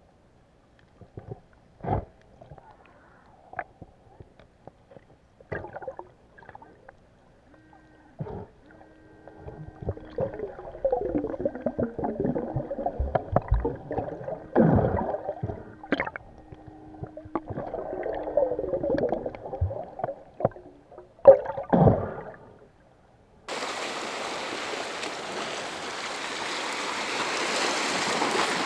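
Underwater bubbling and gurgling with scattered clicks and knocks, heard through a camera underwater. About three-quarters of the way in it changes to a steady wash of sea waves against rocks.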